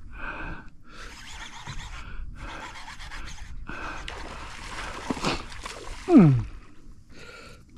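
Angler breathing hard in gasps while fighting a hooked fish, with a short, loud falling groan about six seconds in.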